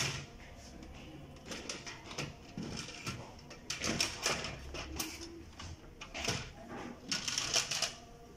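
Irregular plastic clicks, knocks and scraping as a rear plastic panel assembly is unclipped and pulled out of an HP LaserJet 1320 laser printer.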